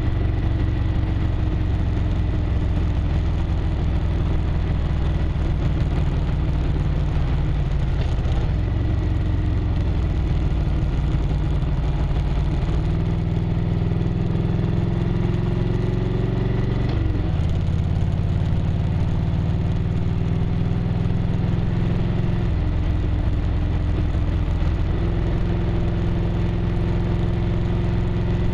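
1998 Harley-Davidson Road Glide's V-twin engine running under way on the road. The engine note steps up and down in pitch several times as the rider changes speed, with a quick dip and rise about two-thirds of the way through.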